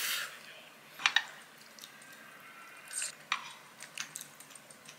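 Tableware sounds at a meal: wooden chopsticks and a spoon clicking against ceramic bowls and a soup pot, with small wet sounds. There are two sharp clicks about a second in and a few lighter knocks and short swishes later.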